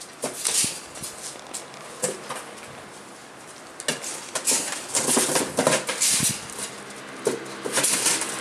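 Rough collie puppies at play, scuffling about a cardboard box and wire pen: irregular bursts of scrabbling, rustling and clattering, busiest in the middle stretch and again near the end.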